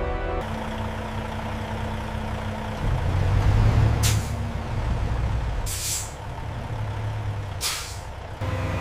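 Heavy vehicle's diesel engine running steadily, swelling about three seconds in, with three short sharp hisses of released air spaced one and a half to two seconds apart.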